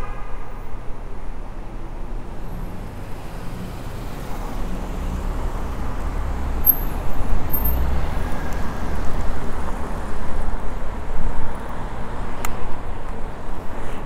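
City traffic noise heard from a moving electric bike, with a low rumble that swells in the middle. A single sharp click comes near the end.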